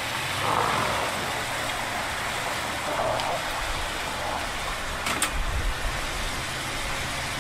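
A vehicle engine running steadily: a low rumble under an even hiss, the rumble swelling for a couple of seconds in the second half.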